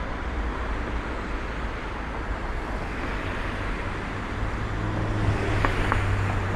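City street traffic: steady road noise of passing cars, with a low engine hum that sets in about halfway through and a few light clicks near the end.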